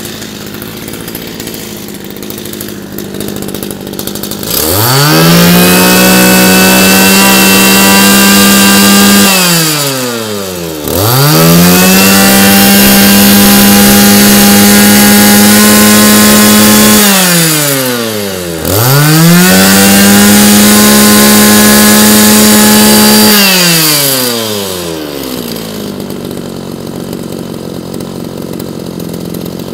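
Komatsu G2K brush cutter's small two-stroke engine idling, then revved to high speed three times, each held for about five seconds before dropping back to idle, and idling again near the end.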